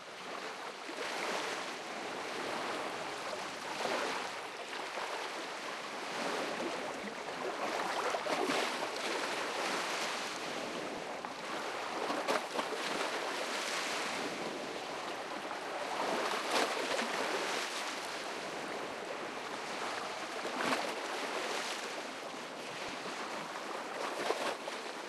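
Waves washing with a rush of wind, swelling and easing about every four seconds.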